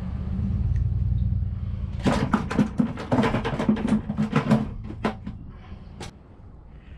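Fishing gear being handled in the bed of a pickup truck: a quick run of clicks and clatters through the middle, and one more click near the end, after a low rumble at the start.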